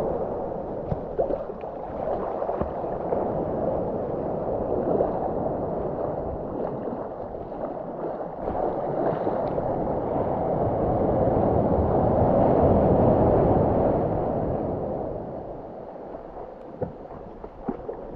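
Shallow surf washing in and out, with water sloshing and gurgling close to the microphone. It swells louder for a few seconds past the middle and eases off near the end.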